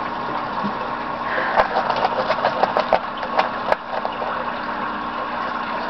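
Ferrets scrabbling and digging in sand inside a plastic bin: a run of scratchy rustles and sharp little clicks of claws from about a second and a half in to about four seconds in, over a steady background hum.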